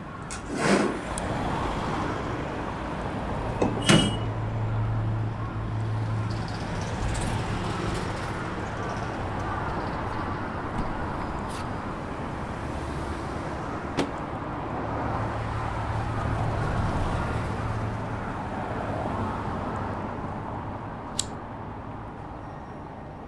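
Steady background noise, with glass bottles knocked together twice in the first few seconds, the second knock ringing briefly. A lighter clicks sharply shortly before the end.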